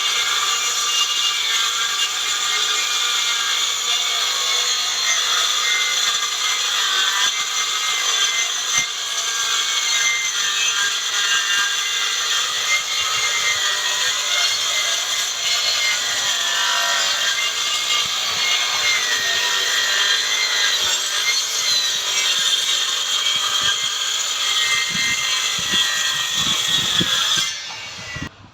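Handheld electric circular saw running and cutting through wooden boards: a loud, steady high whine whose pitch wavers as the blade works through the wood. It cuts off abruptly shortly before the end.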